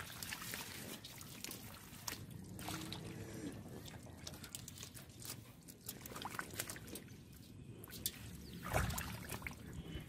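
Hands squelching and splashing through shallow mud and water, a run of small irregular wet slaps and drips, with a heavier splash about nine seconds in.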